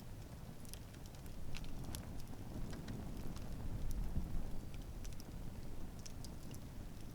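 Wood campfire crackling, with irregular sharp pops over a steady low rush of the flames.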